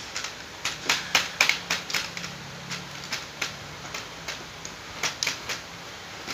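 Irregular sharp plastic clicks and taps, bunched into quick runs, as hands handle the opened LED TV's backlight panel, its plastic frame and reflector sheet.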